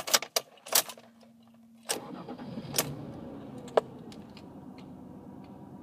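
Keys click in the ignition, then about two seconds in the 2002 Ford Escape's V6 engine starts and settles into a steady idle, with a couple of sharp clicks. This is an idle fault with the check-engine light on: the owner says the car shakes at idle.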